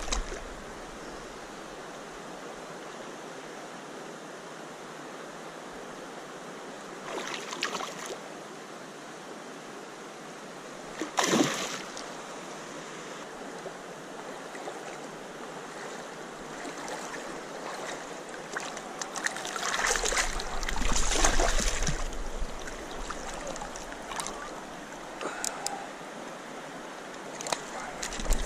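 Steady flowing creek water, broken by a few brief splashes from a large rainbow trout thrashing at the surface, the sharpest about eleven seconds in.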